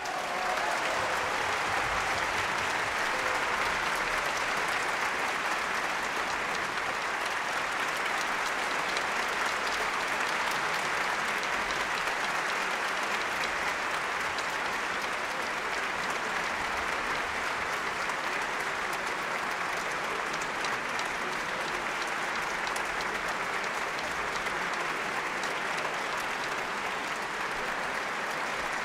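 Large audience applauding steadily in a concert hall.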